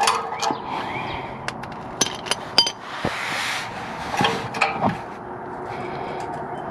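Scattered light metallic clicks and clinks of a wrench and exhaust-valve actuator parts being handled under a car, with a short scraping rustle about three seconds in.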